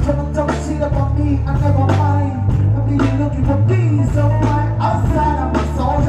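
Live music through a stage sound system: a steady beat over heavy bass, with a man singing into a microphone.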